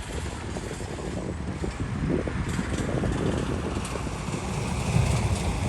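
Diesel engine of heavy earthmoving machinery running with a low rumble, growing louder over the first few seconds.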